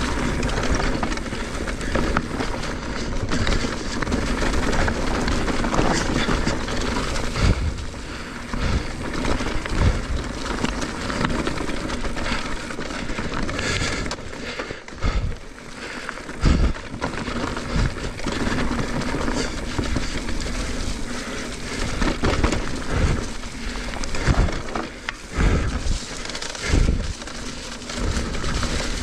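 Mountain bike riding fast down a dirt flow trail: tyres rolling on dirt and wind rushing over the microphone, with scattered heavy thuds from the bike hitting bumps and landings.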